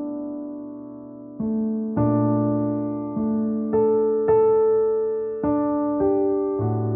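Slow, soft piano music: notes and chords struck about once every half second to second, each ringing out and fading before the next.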